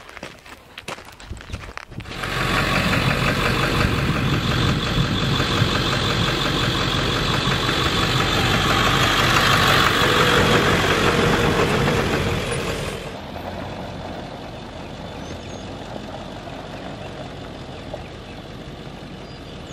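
A few footsteps, then an SUV driving close past on a road. Engine and tyre noise come in suddenly, are loudest about halfway through, and drop to a quieter steady drone about two-thirds of the way in as it moves off.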